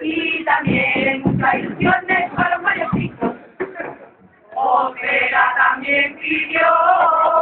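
A women's carnival chirigota group singing a song in chorus over a steady struck beat. The singing breaks off briefly about four seconds in, then comes back with held, steady notes near the end.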